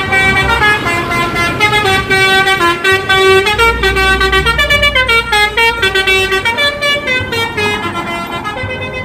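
Multi-tone "telolet" bus horn playing a quick tune of stepped notes, with a low rumble for a couple of seconds in the middle.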